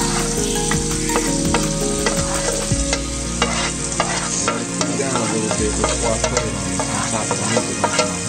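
Raw ground beef being kneaded and mixed by hand with an egg-and-milk mixture and a breadcrumb spice mix in a foil pan. It makes a busy, irregular run of small wet clicks and squishes.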